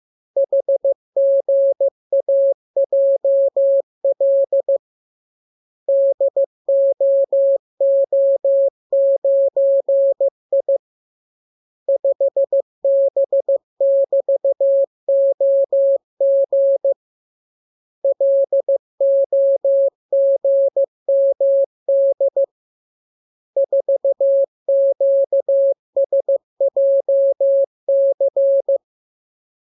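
Morse code (CW) practice tone: a single steady beep keyed on and off into dots and dashes, sending characters for receiving-by-ear training. The keying comes in runs of about five seconds with pauses of about a second between them.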